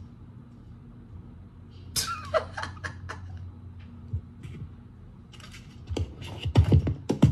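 A man's short laugh about two seconds in, over a low steady hum, with a few short voice sounds near the end.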